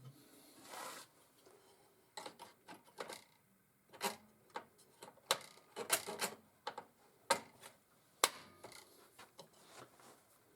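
Scattered sharp clicks and taps of metal hand tools and small engine parts being handled, with a short rustle about a second in.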